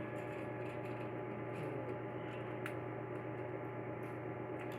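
A steady low electrical hum with a few faint light clicks over it.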